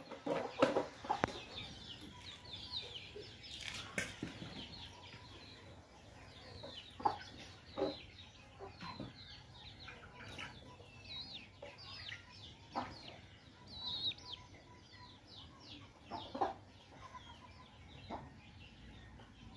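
Young chickens peeping and clucking: many short, high, falling peeps throughout, with a few louder low clucks at uneven intervals.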